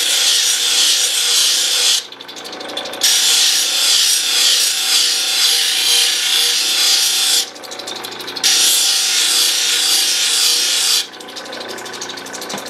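Opal being ground against a spinning resin wheel on a cabbing machine to round off the edge of the back bevel: a rough hiss in three stretches of a few seconds each. When the stone is lifted off, the machine's motor hums steadily.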